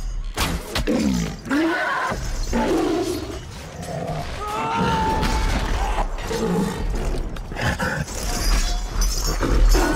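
Film sound mix of troll roars and growls with crashes and impacts, over orchestral music.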